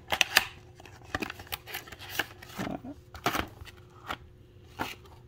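Cardboard trading-card box being slit open with a blade and handled, then cellophane-wrapped card packs picked up: a scattered series of short scrapes, taps and crinkles.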